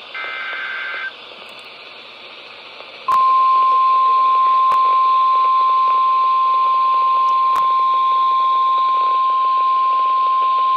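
Emergency Alert System weather alert received over NOAA Weather Radio, with static hiss. It opens with a one-second burst of the two-pitch digital SAME header data. About three seconds in, the steady single-pitch warning alarm tone starts and holds, broken by a few static clicks.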